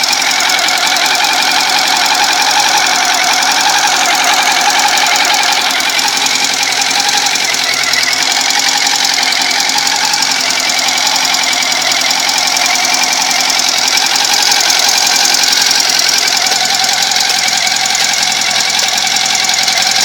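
Honda CB400 motorcycle engine running at a steady speed with a rapid ticking clatter. The owner cannot say what is causing the tick.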